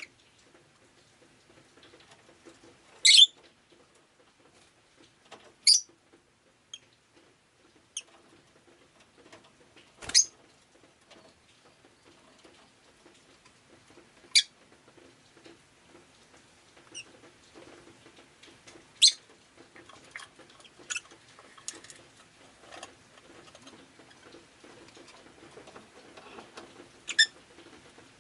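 Rosy-faced lovebird giving short, high-pitched chirps every few seconds, about eight in all.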